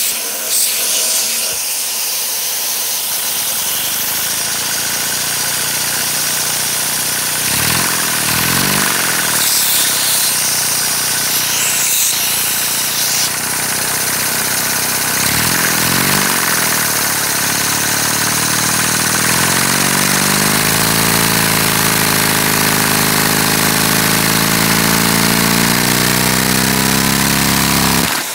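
LEGO vacuum engine running at full throttle with a smaller flywheel, a fast mechanical clatter over the steady hiss of the suction driving it. Its pitch climbs and wavers over the second half as it speeds up, and it cuts off suddenly near the end.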